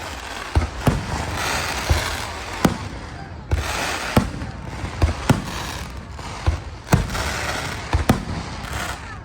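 Fireworks display: a string of sharp bangs from bursting shells, a bit more than one a second, with a crackling hiss between them.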